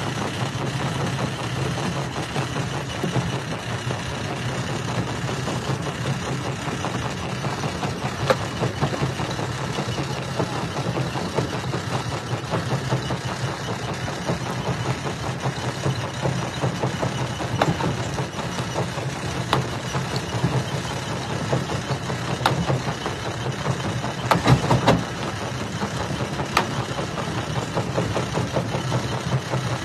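Jaw-type rock crusher running with a steady heavy machine drone. Stones crack and knock in it at irregular moments, with a louder cluster of knocks near the end.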